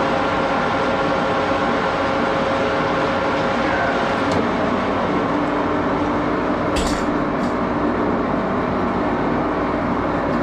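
1941 Axelson gear-head lathe running under power, a steady mechanical drone with a whine of several steady gear tones. A short sharp scrape or click cuts in about seven seconds in.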